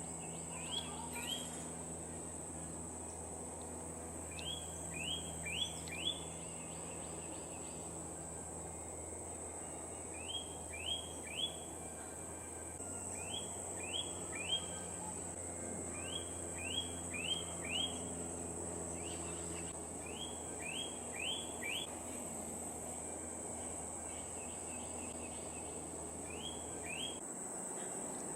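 Short high chirps, each falling in pitch, in quick runs of two to four that repeat every couple of seconds. Under them runs a steady high insect-like whine and a low hum.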